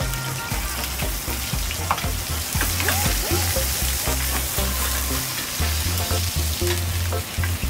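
Steaks sizzling in hot butter and oil in a cast-iron skillet while they are basted, with light clinks and scrapes of a metal spoon in the pan. The hiss is steady, a little louder around the middle.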